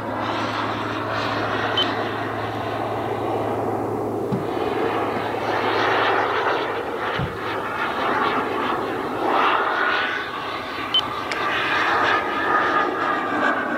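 Turbine engine of a model jet (Hispano Aviation Bull) in flight overhead: a steady jet roar that swells and fades as the plane moves across the sky. A high turbine whine comes through in the last few seconds, rising slightly.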